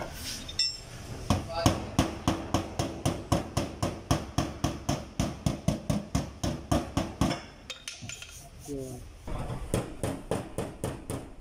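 Body hammer tapping out a dent in a car's sheet-metal door panel: quick, even metal strikes about four a second. They pause about eight seconds in, then resume a little faster.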